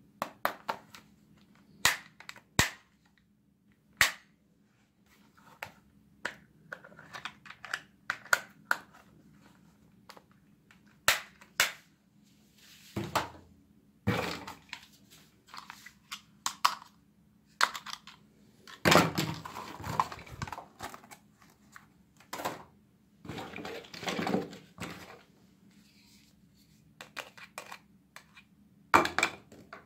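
Hard plastic toys clacking and knocking against each other and the cardboard box as they are handled and taken out, a string of sharp clicks with a few longer scrapes and rustles in the middle.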